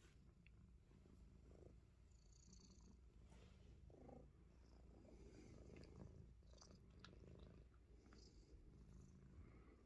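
Faint purring of a Himalayan Persian cat: a low, continuous rumble.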